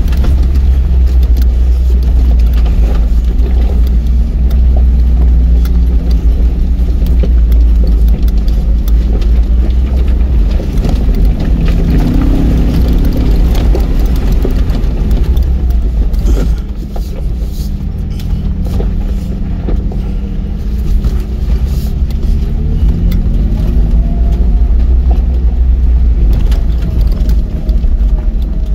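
Ford Bronco's engine running at low, varying revs while crawling over a rocky dirt trail, with a heavy low rumble and clattering as the vehicle jolts over stones. The engine sound eases off somewhat about sixteen seconds in.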